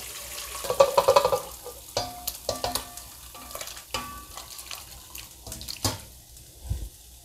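Beef stew poured from a stainless-steel pan into a steel pot, with a metal utensil scraping the pan and several sharp metallic clanks, the clearest about 2, 4 and 6 seconds in.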